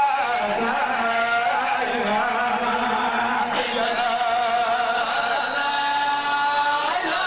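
A solo male voice singing a devotional chant in long, drawn-out phrases with a wavering, ornamented pitch, settling into a long held note near the end.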